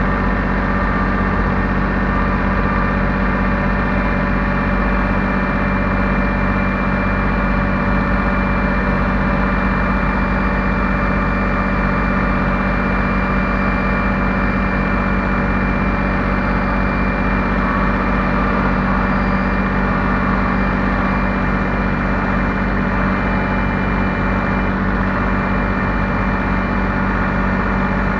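Heavy machinery engine running steadily at one constant speed, with no revving or change in load.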